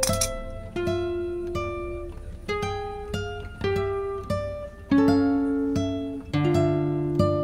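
Background music: plucked acoustic guitar playing single notes and strums, each note ringing and fading.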